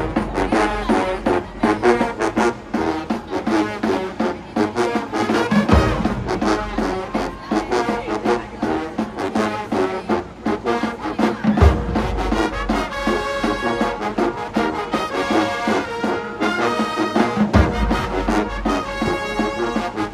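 Marching band's brass section playing a loud tune, trombones and trumpets to the fore over a steady percussion beat, with a heavy low hit about every six seconds.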